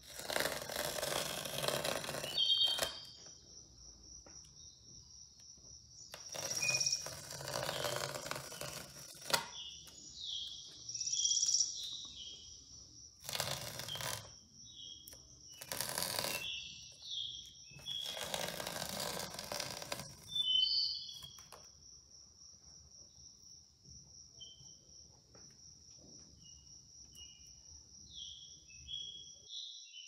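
Masking tape being peeled off the edges of a painting, about five long rips one to three seconds each, the last one near two-thirds of the way through. Behind them runs a steady cricket trill with short bird-like chirps.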